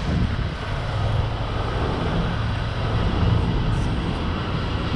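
Steady city street traffic noise, heard from a moving bicycle.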